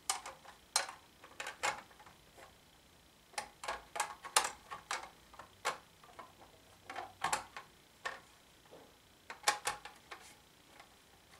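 White plastic diffuser cover being pressed and snapped onto the frame of an 18-inch LED ring light: a run of irregular sharp plastic clicks and snaps, some coming in quick clusters.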